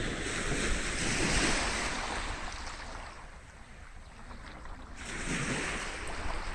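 Sea waves breaking and washing up a beach, two surges about four seconds apart, over a steady low rumble of wind on the microphone.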